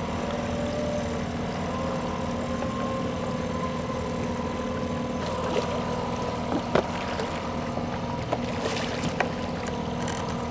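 Boat engine running steadily as a hooked coho salmon is played to the side of the boat. From about halfway on come short sharp splashes as the fish thrashes at the surface.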